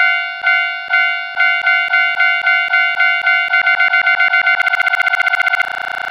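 Japanese level-crossing alarm bell sound effect ringing "kan kan". The dings start about two a second and speed up steadily until they run together into a continuous buzz about five and a half seconds in.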